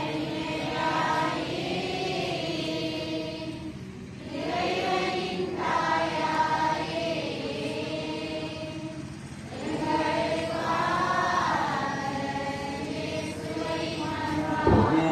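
A group of voices singing a Tamil Christian hymn in unison, in three long drawn-out phrases with short pauses between them.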